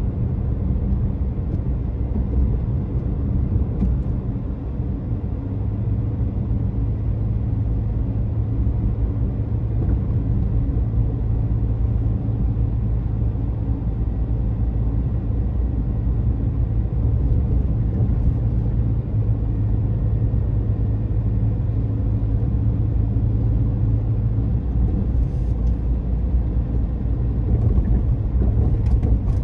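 Road noise and engine hum of a moving car heard inside the cabin: a steady low rumble from tyres and engine, with a few faint ticks near the end.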